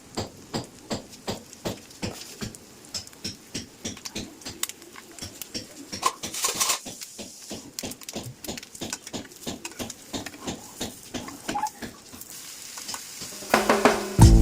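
Rhythmic kitchen utensil strokes, a steady clicking of about three to four a second, with a brief louder scraping rush about six seconds in. Loud background music comes in near the end.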